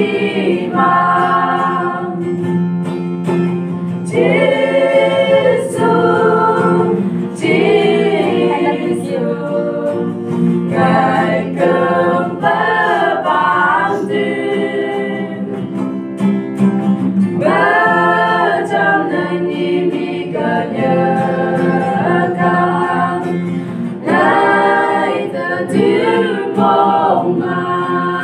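A small mixed group of voices singing a gospel song in the Phom language, accompanied by acoustic guitar.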